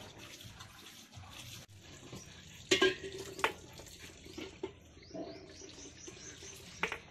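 Water running and splashing into a plastic tub, broken by a few sharp knocks, the loudest about three seconds in and another near the end.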